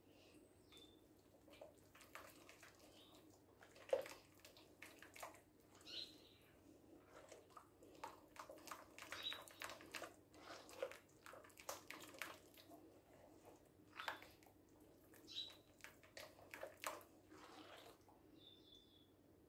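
Faint, irregular squelching and clicking of a hand kneading and rubbing a wet cocoa mixture against the sides of a glass bowl.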